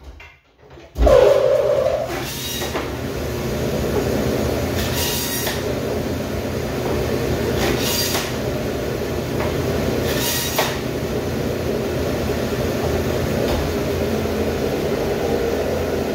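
Electric meat band saw starting up about a second in, then running steadily. Four short, higher-pitched sounds come as the blade cuts through lamb shank bone to take the knuckles off.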